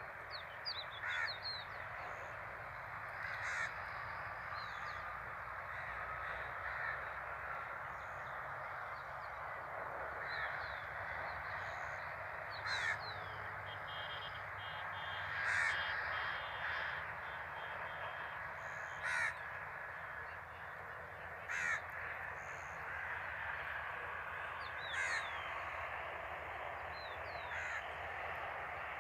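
Harsh bird calls every few seconds, with fainter high chirps, over a steady outdoor hiss.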